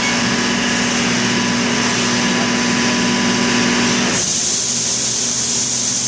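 Skid steer engine running with a hydraulic rotary broom attachment mounted, a steady hum over a hiss. About four seconds in the sound changes suddenly: the engine hum drops away and a higher hiss remains.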